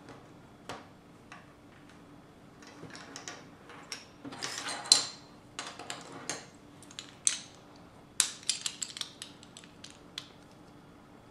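Plastic Lego bricks clicking and snapping as they are handled and pressed together, in scattered sharp clicks. There is a stretch of rattling about four seconds in, with the loudest snap near five seconds, and a quick run of clicks around eight to nine seconds.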